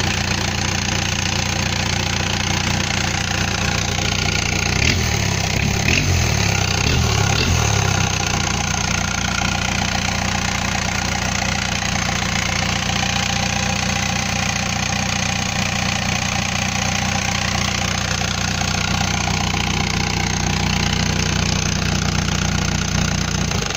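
Isuzu 4JA1 four-cylinder diesel engine, out of the vehicle, running steadily. Its speed shifts up and down briefly about five seconds in, then it settles back to a steady idle.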